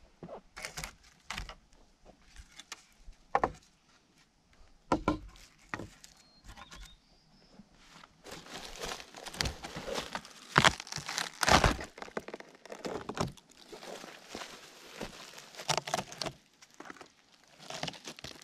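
Dry vegetation rustling and crackling as it is handled, with scattered sharp snaps and knocks. The rustling is thickest and loudest from about nine to twelve seconds in.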